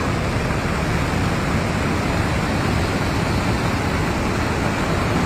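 Steady rushing of a river in flash flood, a constant noise with no let-up.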